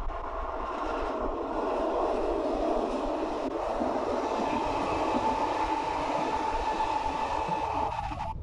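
Régio2N double-deck electric train running past at close range, a steady rush of wheel and running noise that builds over the first couple of seconds. A steady whine comes through in the second half.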